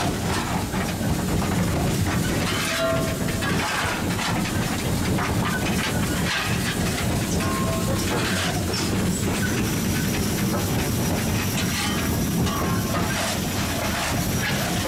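Steady running noise of GWR Modified Hall steam locomotive No. 6990 under way, heard on the footplate, with irregular metallic scrapes and clatters as the fireman shovels coal from the tender.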